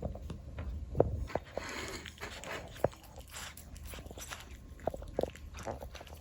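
A cat eating wet tuna in gravy, chewing and licking with irregular wet clicks and smacks, the sharpest about a second in and just before three seconds.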